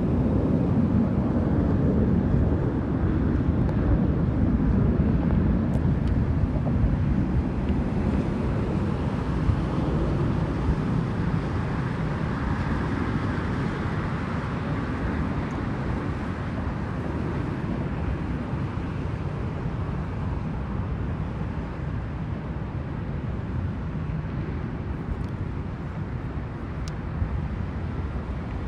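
Distant airshow aircraft engines rumbling in the sky, loudest at first and slowly fading as the aircraft draw away.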